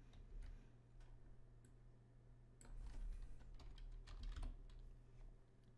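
Faint keystrokes on a computer keyboard: quick, irregular typing in short runs, busiest about halfway through.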